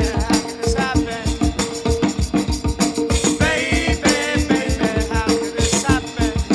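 Early-1970s rock band recording playing: a steady drum beat under long held notes, with a wavering melodic line about three seconds in.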